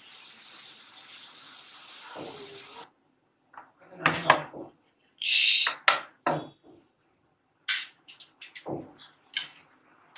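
Pressure cooker hissing steadily as steam escapes, cutting off abruptly about three seconds in. Then a string of metal clanks, knocks and scrapes as the lid comes off and a spoon stirs the meat in the metal pot.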